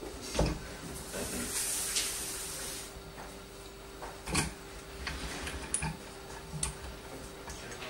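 Handling noise from a microscope camera and zoom lens being fitted and moved on a metal boom stand: a few sharp knocks of parts meeting, the loudest about half a second in and about halfway through, with a scraping slide for a second or two near the start.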